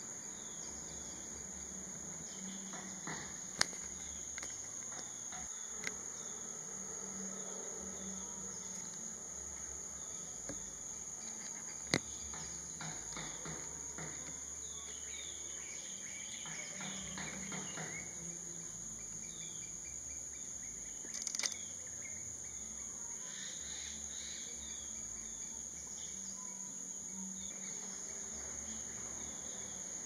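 Forest ambience: a steady, high-pitched drone of insects, with small birds chirping now and then and a few sharp clicks.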